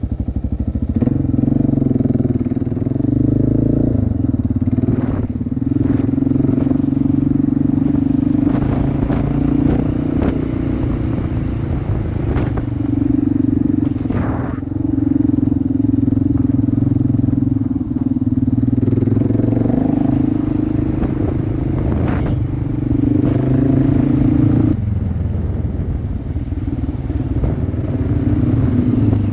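Kawasaki KLR650's single-cylinder four-stroke engine running under way, with a steady tone whose pitch shifts a few times as the throttle changes. Occasional short knocks and clatter are heard over it.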